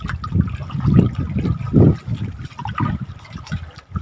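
Choppy seawater sloshing and lapping against the wooden poles of a fishing platform, in irregular surges about once a second.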